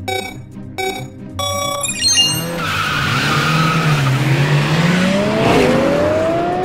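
Race start sound effects: short countdown beeps from the starting lights, ending in a higher 'go' tone about two seconds in. Then two race cars launch with squealing tyres and engines revving up, rising in pitch.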